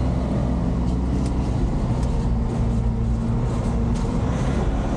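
Light cargo truck's engine running steadily while driving, heard from inside the cab, with road noise underneath.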